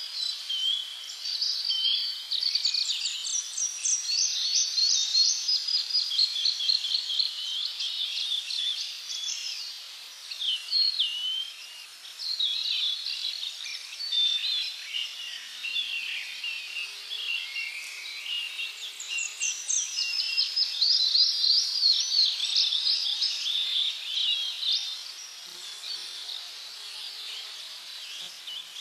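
Several birds singing and chirping together in rapid overlapping trills and short high notes, over a faint steady hiss of insects or ambience.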